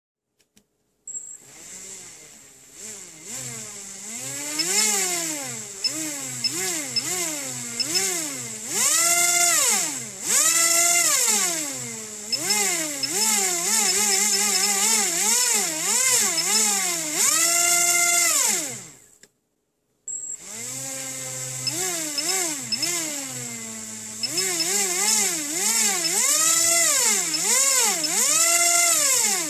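Tiny 2g Hextronik 7700kv brushless motor on a Supermicro 3.5A ESC running BLHeli firmware, whining up and down in pitch as the throttle is blipped over and over, answering the stick quickly. A steady high tone sounds beneath it, and the sound cuts out for a moment about two-thirds of the way in before starting again.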